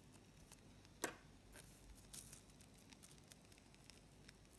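Near silence: faint handling of a small satin ribbon leaf as it is folded in half between the fingers, with one sharp click about a second in and a few soft ticks after it.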